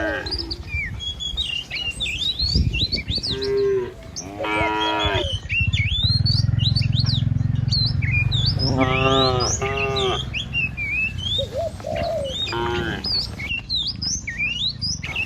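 Cattle mooing several times, with a few short moos and two longer, fuller ones, while small birds chirp and twitter constantly. A low rumble sits under the middle stretch.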